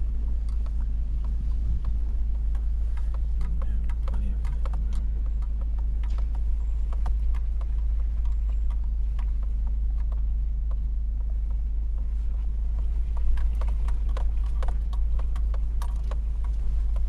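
Hummer H3 crawling over a rough off-road trail: a steady low engine rumble with many irregular knocks and rattles from the body and suspension.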